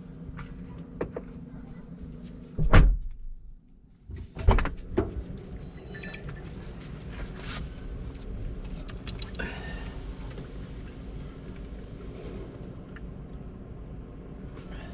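A LandCruiser 70 Series door thuds shut about three seconds in. About two seconds later comes a second loud door thunk with a smaller knock just after, over a steady low hum.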